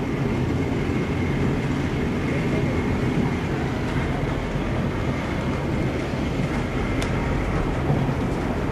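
Steady rumble of a White Pass & Yukon narrow-gauge passenger car rolling over the track, heard from inside the coach, with a single sharp click about seven seconds in.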